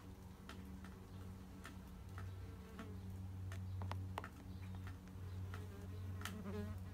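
Wasps buzzing at their paper nest: a low hum that swells and fades, with scattered light ticks.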